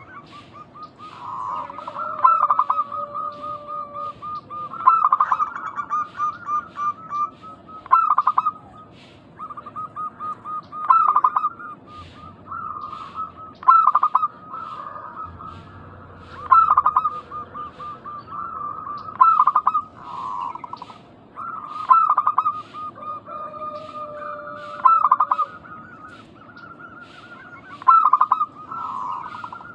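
Zebra doves (local perkutut) cooing: a phrase of rapid staccato coo notes repeated about every three seconds.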